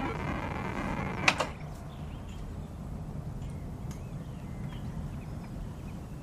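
Electronic tones that break off about a second in with a sharp click, and a second click just after. Then a low, steady hum with a few faint ticks.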